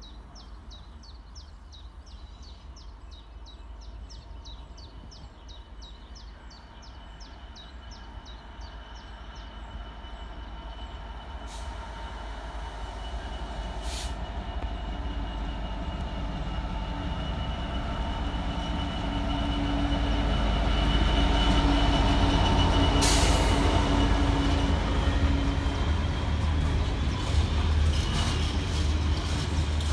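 Freightliner Class 66 diesel locomotive with an EMD two-stroke V12 engine approaching and passing, growing steadily louder until about two-thirds of the way through. The train's container wagons then run past, steady and loud.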